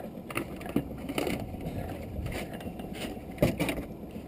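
Water lapping against the hull of a small open boat, with a few light knocks and clicks, the loudest about three and a half seconds in.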